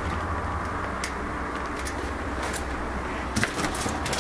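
Handling noise of a handheld camera carried through an empty, debris-strewn room: a steady low rumble and hiss, with a few scattered sharp clicks and knocks, most of them near the end.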